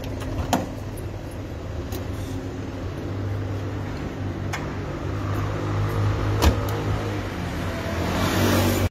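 Steady low engine hum of street traffic that grows louder toward the end. Two sharp knocks sound, about half a second and six and a half seconds in.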